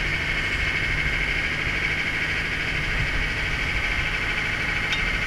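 A fishing boat's engine running steadily: a low drone with a constant high whine above it.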